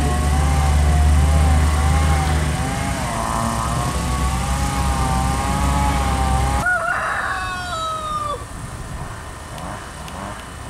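Low engine-like rumble with a slowly wavering whine, cut off abruptly about two-thirds in, followed at once by a rooster crowing once, rising then falling.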